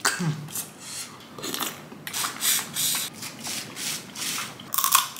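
Eating noises from cracking and sucking on crab and prawn shells: an irregular run of short crunching, smacking and slurping sounds.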